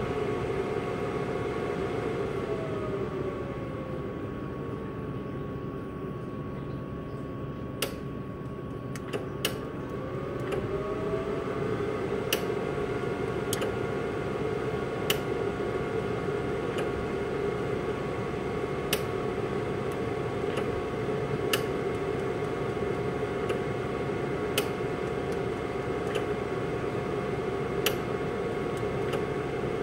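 Jewellery laser welder pulsing while gold ring claws are retipped with fine wire: a sharp click with each laser shot, one every second or two from about eight seconds in. Underneath runs the machine's steady hum, with a tone in it that slides down and then back up during the first ten seconds.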